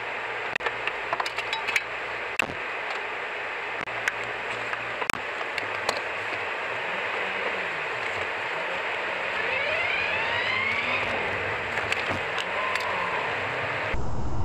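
Steady wind and road noise heard from inside a car in a snowstorm, with scattered sharp ticks over the first few seconds and again later, and a few brief rising whines about ten seconds in. Near the end it cuts to a louder, steady driving noise.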